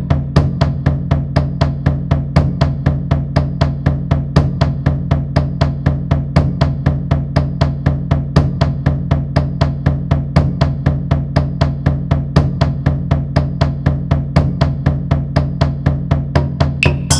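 Drums struck in a steady, even pulse of about four strokes a second over a sustained low hum, in a percussion piece.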